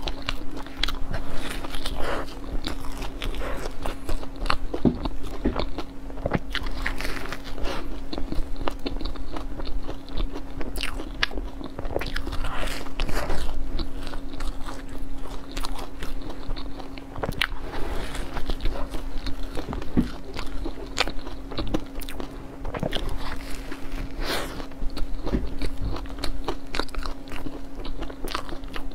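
Close-miked eating of crumb-topped cream puffs: repeated crisp bites and crunches with softer chewing between, over a steady low hum.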